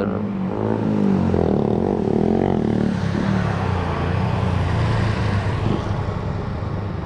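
Honda ADV 150 scooter's single-cylinder engine running steadily on the move, under a haze of wind and wet-road tyre noise.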